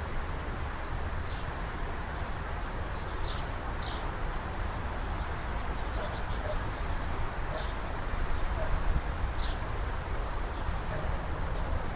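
Small birds at a feeder giving short, high chirps, singly or in quick pairs every second or two, over a steady low rumble and hiss.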